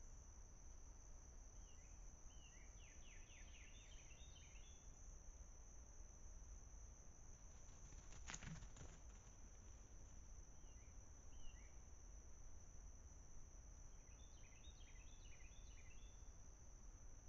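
Faint outdoor ambience of a steady, high insect drone. A bird sings a short run of quick chirping notes twice, and there is one brief knock or rustle about eight seconds in.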